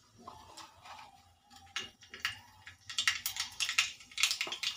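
Black mustard seeds crackling and popping in hot mustard oil in a kadhai. Sparse sharp pops at first turn into dense, rapid crackling about three seconds in as the seeds start to splutter, the sign that the oil is hot enough for tempering.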